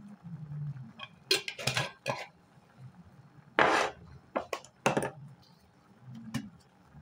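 Glass spice jars being handled and set down on a wooden countertop: a run of short clinks and knocks, with a longer scrape a little past the middle and a last knock near the end.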